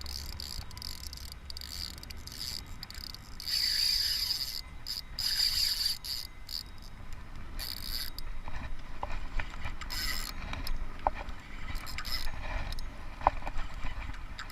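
Fishing reel being wound in against a hooked fish: a whirring, mechanical sound that comes and goes, with scattered sharp clicks in the second half.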